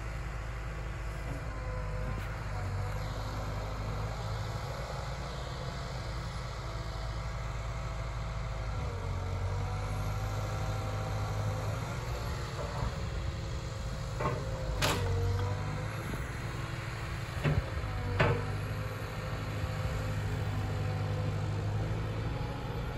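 Liebherr excavator's diesel engine running steadily under hydraulic work, its tone dipping and rising a few times as the boom and felling head work. A few sharp knocks stand out about two-thirds of the way in.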